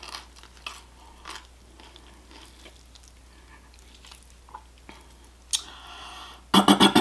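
A person chewing mouthfuls of roasted chicken, with quiet scattered clicks and ticks as the meat is pulled apart by hand. Near the end a short, loud burst of throat sounds breaks in.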